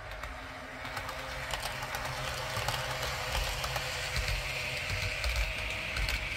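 OO-gauge Class 156 model diesel multiple unit running past on the track, growing louder as it approaches. Many small clicks of wheels over the rail joints ride over a steady low rumble from its sound decoder's engine sound, with a whine that strengthens near the end before the sound cuts off suddenly.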